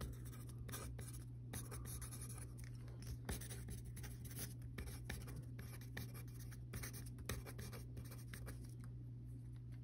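Faint scratching of a pen writing on paper, a quick run of short strokes as words are written out. A steady low hum runs underneath.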